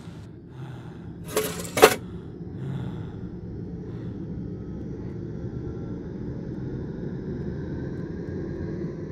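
Two sharp knocks close together about a second and a half in, then a steady low rumbling drone.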